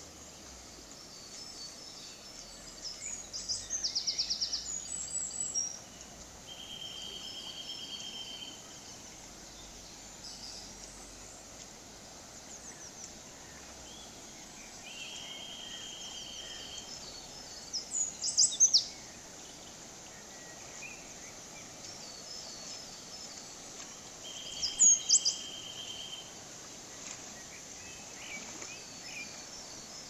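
Steady rush of a shallow forest river flowing over rocks, with birds calling over it: a buzzy trill three times and bursts of sharp, high chirps.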